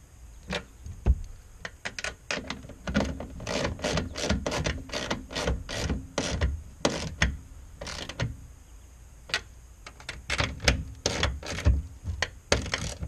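Ratchet wrench clicking in quick, uneven runs as the tail light's mounting nuts are run down snug, with a short pause partway through.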